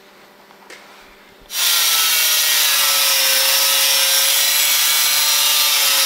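An angle grinder on steel tubing comes in abruptly about a second and a half in and runs steadily. A motor whine rides over a loud hiss of grinding.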